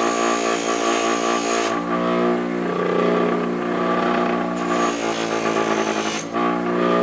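Bench grinder fitted with a buffing wheel, its motor humming steadily. Twice, for a second or two each time, a high scraping hiss rises over the hum as something is pressed against the spinning wheel.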